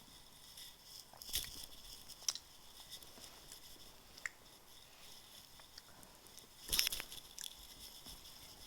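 Mouth chewing a sticky sour apple chew: faint, scattered wet clicks and smacks, with one louder burst of noise about two-thirds of the way through.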